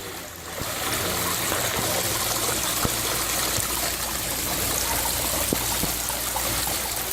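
Water from an indoor exhibit waterfall running and trickling steadily, starting up about half a second in.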